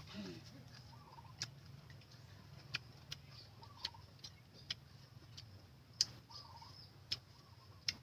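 Faint, irregular sharp clicks, about one a second, with a short wavy bird call repeating every two to three seconds and a steady high background hum.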